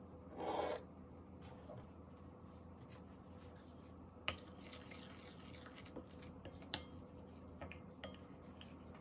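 Granulated sugar tipped from a small dish into a bowl of yeast and water, a short soft swish about half a second in. This is followed by faint scraping and stirring, with a few light clicks of a utensil against the bowl.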